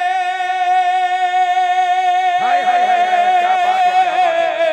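A man's voice holding one long, steady sung note of an unaccompanied naat into a microphone. About halfway through, more wavering singing joins over the held note.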